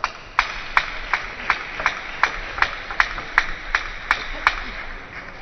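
Audience clapping in unison at a steady beat, about a dozen claps nearly three a second, then stopping.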